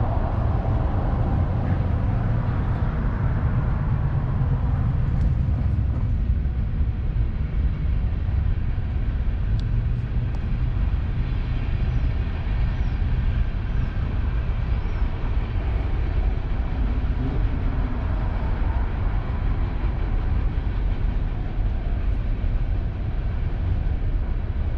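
Train rolling past close by with a steady low rumble and no horn.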